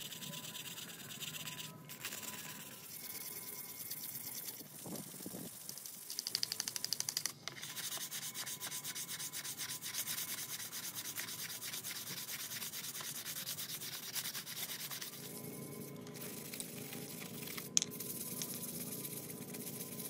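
Sandpaper rubbed back and forth by hand over the orange plastic chain cover of an old Husqvarna chainsaw, a continuous rasping made of quick, even strokes.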